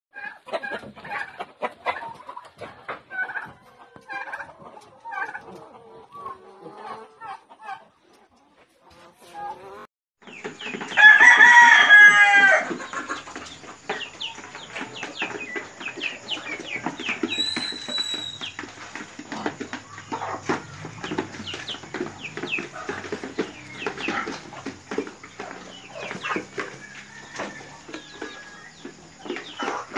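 Chickens clucking in a flock. About eleven seconds in, after a brief lull, a rooster crows loudly for about a second and a half, then many birds cluck and chatter together with a dense patter of short clicks.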